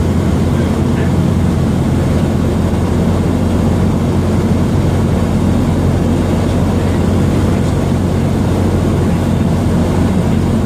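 Cessna 172's piston engine and propeller droning steadily, heard from inside the cabin on final approach to landing.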